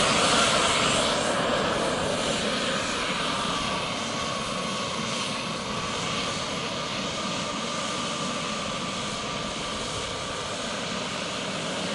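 Small gas turbine of a radio-controlled model jet running during a ground run: a rushing hiss with a faint high whine. It eases down over the first few seconds and then holds steady.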